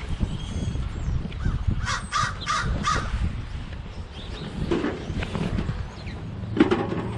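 Crows cawing: three caws in quick succession about two seconds in, and more near the end, over a low steady rumble.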